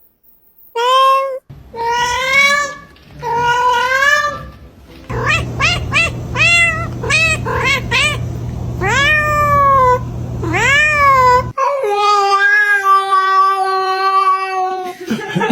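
Cats meowing across several short clips: drawn-out meows, then a quick run of short chirping meows about two a second, two longer meows that swoop up and fall, and a long, steady, held yowl of about three seconds near the end.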